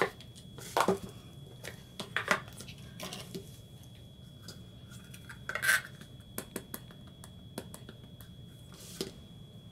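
Light clacks and taps of a clear acrylic stamp block and a plastic ink pad case being handled on a tabletop, with the rubber stamp pressed onto the ink pad. About five separate knocks, the loudest a little past halfway, with a faint steady high whine throughout.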